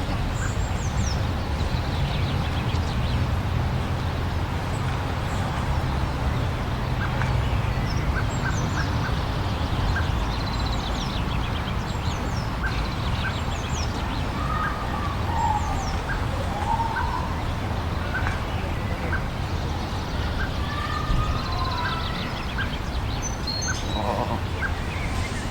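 Steady rushing wind with birds calling over it: many short falling chirps, a high pip repeated about once a second through the second half, and a few warbling calls around the middle.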